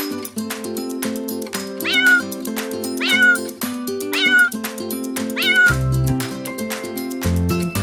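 A kitten meowing four times, about a second apart, each meow short and high-pitched. Acoustic guitar background music plays under it.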